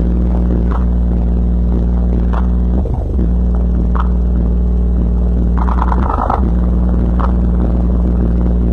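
Pioneer car-audio subwoofer playing very strong, deep bass notes, held steady and changing briefly about three and six seconds in, with short clicks and a brief higher buzz near the six-second mark.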